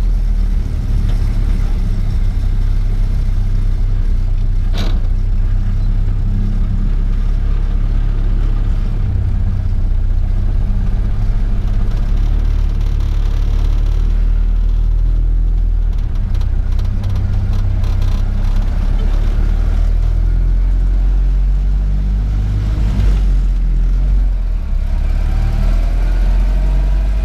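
1931 Ford Model A's four-cylinder engine running steadily under way, a loud low drone whose note changes about halfway through and again near the end.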